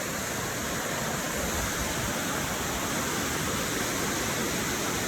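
Water rushing steadily down a partly frozen waterfall, an even hiss with no breaks.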